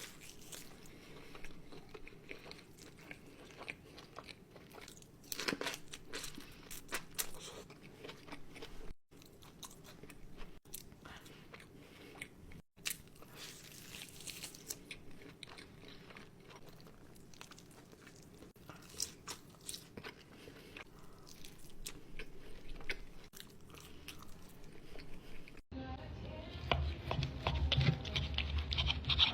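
Close-miked mouth sounds of eating steak and sweet potato: chewing, biting and wet smacking, with scattered clicks. Near the end a louder rubbing and scraping comes in.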